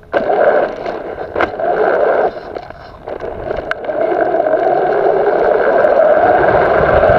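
RC car's drivetrain and tyres running over gravel. The noise builds steadily from about halfway through as the car drives off, after a couple of sharp clicks.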